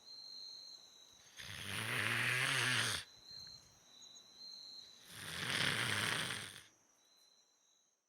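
A man snoring: two long, loud snores about three and a half seconds apart.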